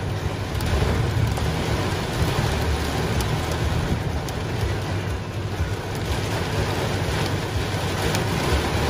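Heavy rain pelting a truck's windshield and roof, heard from inside the cab as a steady dense hiss with a low rumble beneath it.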